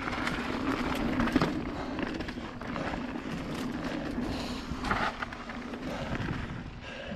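Mountain bike rolling fast down a dirt trail onto a gravel path: tyre noise and the bike rattling over bumps, with wind rushing over a GoPro microphone. A sharp knock comes about a second and a half in.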